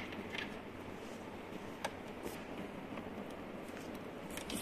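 A few faint clicks and taps from banana-plug patch cords being handled and pushed into the sockets of an electronics trainer board, over a steady low hiss.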